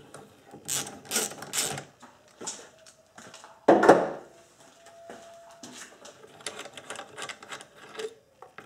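Ratchet wrench clicking in rapid runs as the 10 mm nut holding the absolute pressure sensor to its mount is undone. There is a louder knock about four seconds in.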